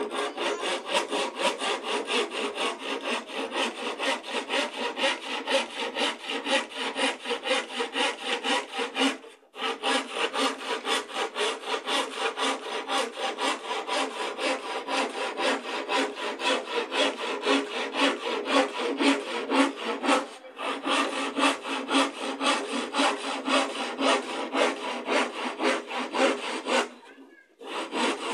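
Handsaw cutting through a wooden board in quick, steady back-and-forth strokes. It pauses briefly twice and stops near the end.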